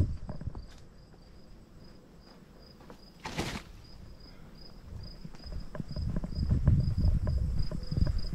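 Insect chirping in a steady run of short high pulses, about three a second. A brief hiss comes a little past three seconds in, and low rumbling and knocks from walking and from handling of the camera rig build up over the second half and are the loudest thing.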